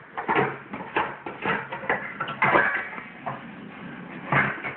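Stainless steel pots and pans clanking and knocking against each other as they are rummaged through on a shelf and a frying pan is pulled out. A quick, uneven run of metal knocks, loudest about two and a half seconds in and again near the end.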